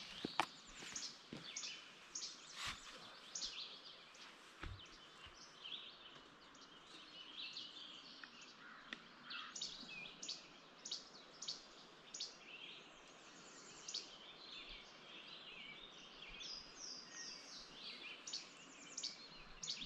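Songbirds singing, a mix of short high chirps and quick trilled phrases repeating throughout, over a faint steady hiss of the outdoors.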